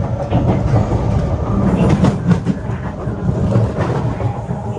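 Kawasaki C151 metro train running, heard from inside the car: a steady low rumble with wheels clacking sharply over the rails, the clacks bunched about two seconds in and again near the end.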